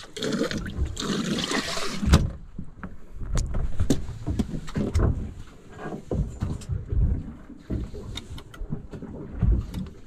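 Water splashing and hissing in a boat's live-bait well for about two seconds, ending in a sharp knock, then scattered knocks and low thumps of gear being handled on the boat deck.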